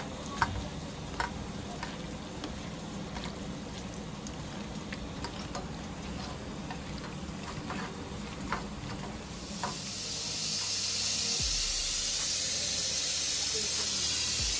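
Hand squishing and mixing raw chicken with curd, onion and tomato in a bowl: soft wet squelching with scattered small clicks. About ten seconds in, a steady, louder hiss begins: steam released from a pressure cooker.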